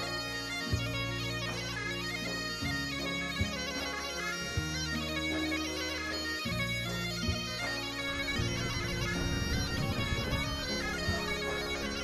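Background music: an instrumental passage of a Black Sea–style folk song, a bagpipe playing a melody over a steady drone.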